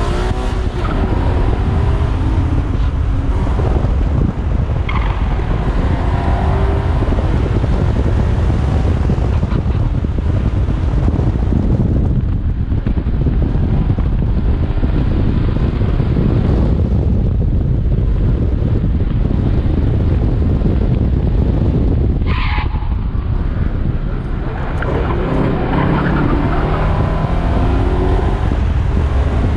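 A car driven hard, heard from outside the driver's window: the engine revs up and down through acceleration and braking, over constant wind and tyre noise. A short tyre squeal comes about 22 seconds in.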